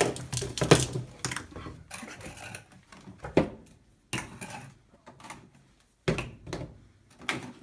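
Spice and seasoning jars clicking and knocking as they are taken off a cabinet shelf and set down on a countertop: a string of irregular sharp knocks.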